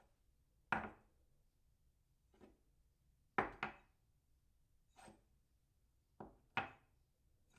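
A cup set down on a saucer again and again: short, sharp clinks a second or so apart, two of them coming in quick pairs.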